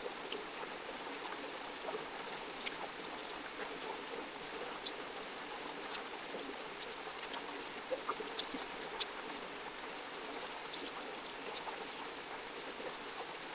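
A stream or creek running steadily, an even rush of water with faint scattered ticks and splashes.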